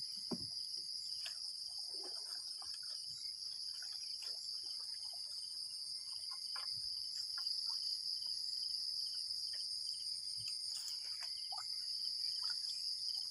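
Steady chorus of insects in the wetland: a continuous high buzz with fast, even pulsing trills beneath it. Scattered small knocks and taps sound through it.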